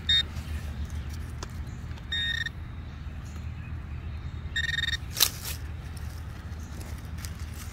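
A metal detector gives short warbling beeps, three in all: just at the start, about two seconds in and about five seconds in. Each beep signals metal in the freshly dug plug. A sharp click or scrape follows just after the last beep.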